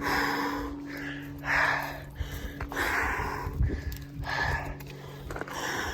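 A person breathing hard from the exertion of a steep uphill climb, with a loud rushing breath about every one and a half seconds.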